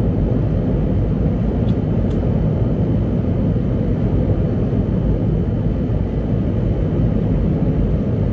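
Loud, steady low rumble of a passing New York subway train, with two faint clicks about two seconds in.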